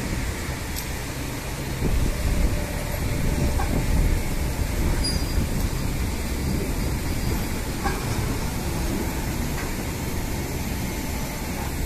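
Heavy machinery of a sugarcane-unloading crane and cane mill running with a steady low rumble, getting a little louder about two seconds in, with a few faint clicks.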